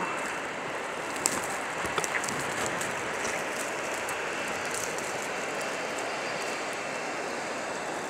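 Steady hiss of blizzard wind and blowing snow, an even noise with a few faint ticks.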